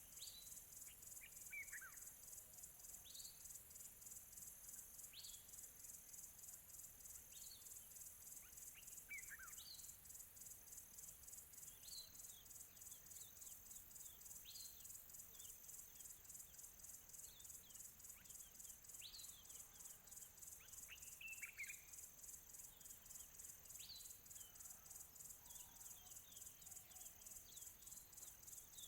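Faint birds chirping, short calls that sweep quickly downward, one every second or two, over a steady high insect trill that pulses fast.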